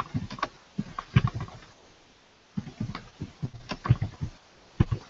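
Typing on a computer keyboard: irregular runs of sharp key clicks separated by short pauses.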